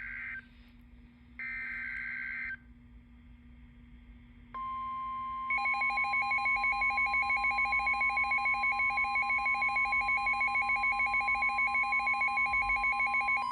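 NOAA Weather Radio Emergency Alert System tones that open a new warning: the tail of one EAS/SAME data burst, then a second one-second burst ending about two and a half seconds in. About four and a half seconds in, the steady 1050 Hz weather radio warning alarm tone starts; a second later a rapidly pulsing beep joins it, about five pulses a second. Both cut off sharply at the end.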